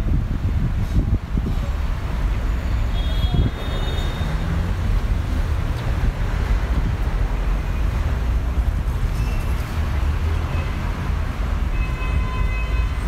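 Busy city street ambience: a steady low traffic rumble from cars on the road. Brief high tones sound a few seconds in and again near the end.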